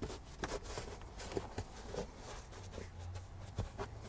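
Scattered light taps, clicks and rubbing as the loose carpeted cargo-floor trim of a 2021 Toyota Sienna is pushed and shifted by hand; the flimsy panel moves under the hand.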